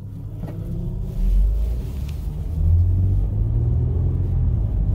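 2007 Toyota Highlander's V6 engine and road noise heard from inside the cabin, a low steady rumble that grows louder over the first second or so as the vehicle gets under way.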